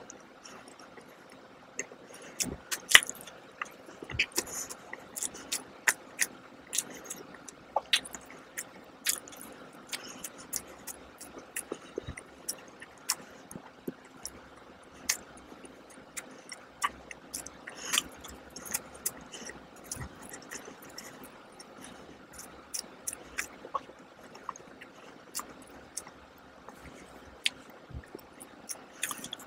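Close-miked chewing of a soft glazed donut: many sharp mouth clicks and smacks at irregular intervals.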